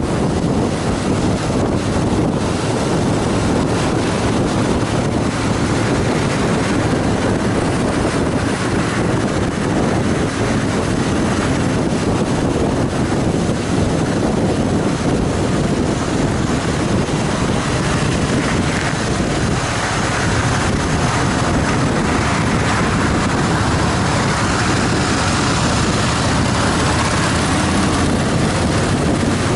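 2014 Harley-Davidson Fat Boy Lo, an air-cooled V-twin, cruising steadily at road speed, with wind rushing loudly over the microphone and nearly drowning the engine.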